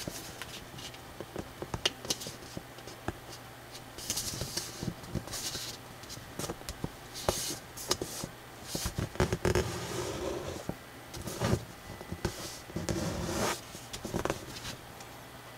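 A sheet of thick pink drawing paper folded and creased by hand: scattered light clicks at first, then about four seconds in, busier rustling and scraping as the flaps are pressed flat, easing off near the end.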